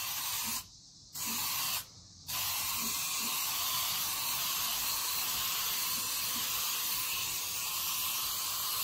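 Aerosol spray can of metal primer hissing: two short sprays of about half a second each, then a long steady spray from about two seconds in.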